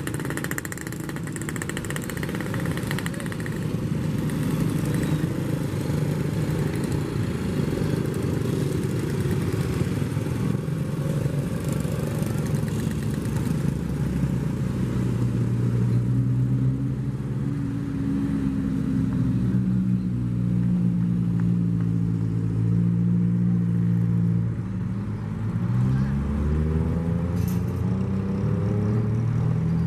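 Motorcycle engines on the road beside the track: a rumbling mix of motorbikes going by, then a steady engine note from about halfway. Near the end the note dips and climbs quickly as a bike revs up and pulls away.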